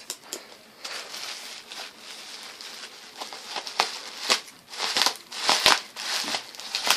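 Plastic packaging and bubble wrap crinkling and rustling as a parcel is unwrapped by hand, with irregular sharp crackles that grow busier and louder in the second half.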